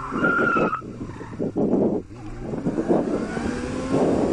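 Sport motorcycle engine accelerating hard, its pitch rising as it revs up, with a short break about two seconds in as it shifts gear, over heavy wind rush. A brief high-pitched squeal sounds in the first second.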